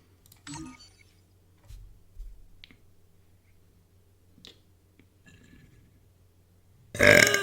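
A woman's loud burp about seven seconds in, after several seconds of only faint scattered clicks.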